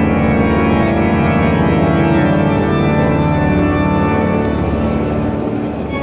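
Church organ playing sustained chords that shift a few times, filling a large stone church.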